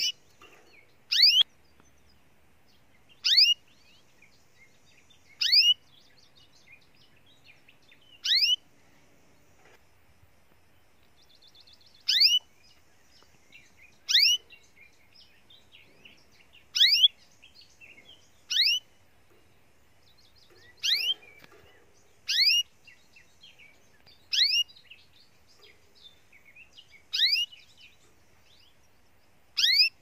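Common blackbird calling over and over, a short whistle that falls steeply in pitch, more than a dozen times at roughly two-second intervals. Faint high trills sound between some of the calls.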